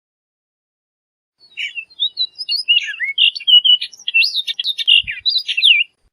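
Orchard oriole singing: a fast, jumbled run of varied whistled notes, many sliding up or down, starting about a second and a half in and lasting about four and a half seconds.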